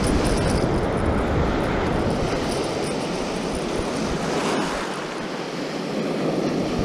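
Small surf breaking and foam washing over the sand, with wind rumbling on the microphone that eases for a couple of seconds in the second half.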